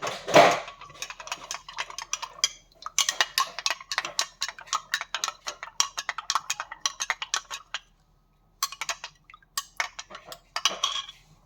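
A spoon stirring honey into banana syrup, clinking rapidly and repeatedly against the side of the container. A louder clatter comes at the start, and there is a short break about eight seconds in.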